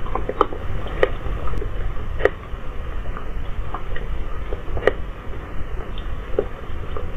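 Steady low rumble of night ambience picked up by a CCTV camera's microphone, with a handful of short sharp ticks scattered a second or more apart, the most distinct about a second in, about two seconds in and near five seconds in.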